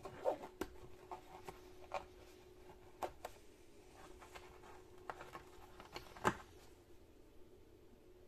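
Insulated plastic-handled screwdrivers handled in a fabric tool case: scattered light clicks and taps with some rubbing as tools slide in and out of their elastic loops, the loudest knock about six seconds in. A faint steady hum sits underneath.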